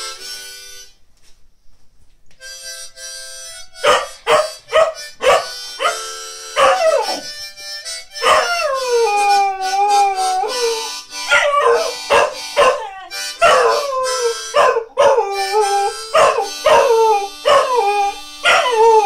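A Spanish water dog howling along to a harmonica. The dog gives a string of short howls that fall in pitch, with one longer drawn-out howl near the middle, over the harmonica's held notes, which begin a couple of seconds in.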